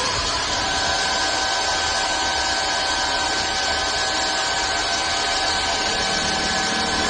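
Multihead CNC wood lathe running and machining wood: a steady loud noise of cutting, with a high motor whine that sets in about half a second in.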